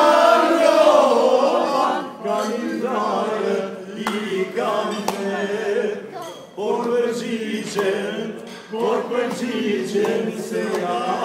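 A group of men singing together unaccompanied, in long held phrases broken by short pauses.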